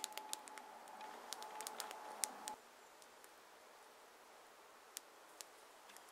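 Faint, sparse crackles and pops from a damp wood fire burning in a pit under a stone slab. It grows quieter about two and a half seconds in, and the scattered sharp pops carry on.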